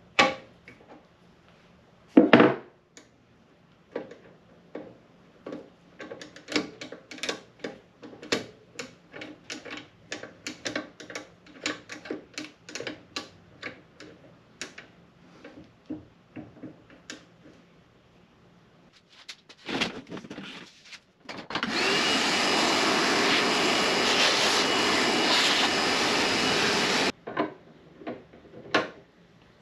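Two loud knocks near the start, then a long run of irregular clicks and knocks from workshop handling. Past the middle a steady, rushing motor noise runs for about five and a half seconds and cuts off abruptly, followed by a few more knocks.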